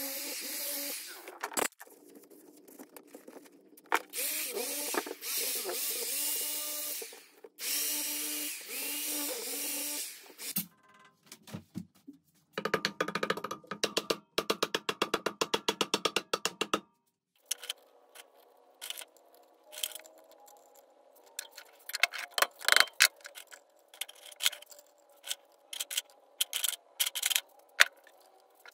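Workshop tool sounds during engine restoration work: three bursts of hissing, then a fast run of clicks, then scattered clicks and taps.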